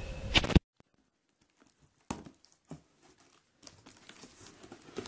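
Clear packing tape ripping and cardboard crinkling as a taped cardboard box is pulled open. The loud ripping stops abruptly about half a second in, followed by scattered light rustles and knocks of the cardboard flaps.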